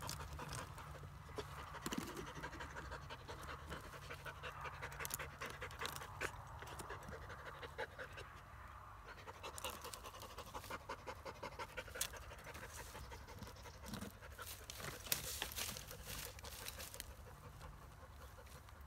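Kars shepherd dog panting rapidly with its head in a tree hollow, with many small clicks and crackles throughout.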